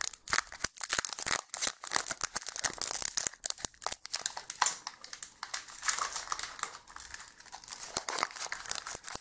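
Foil booster-pack wrapper crinkling as it is torn open and pulled apart by hand: a dense, irregular run of crackles.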